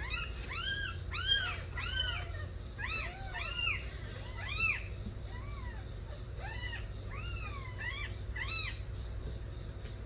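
Stray kittens meowing loudly over and over: short, high, rising-then-falling cries, sometimes overlapping, that stop near the end.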